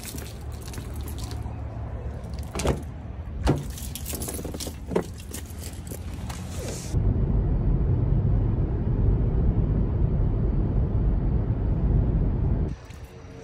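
Keys jangling and a few sharp clicks and knocks as a car door is opened and the driver gets in. About seven seconds in, after a cut, a steady low rumble of the car driving, heard from inside the cabin, which cuts off near the end.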